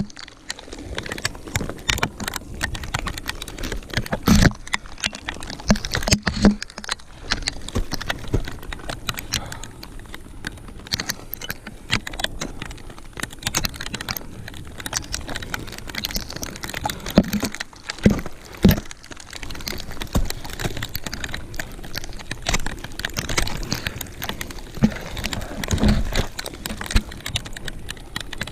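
Ice axe picks and crampon points striking frozen waterfall ice during a climb: irregular sharp knocks throughout, with several heavier strikes among them.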